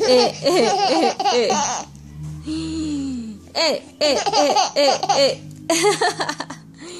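Baby laughing in two bouts of quick, breathy giggles, the first over the opening two seconds and the second from about three and a half seconds in, with a softer drawn-out vocal sound between them.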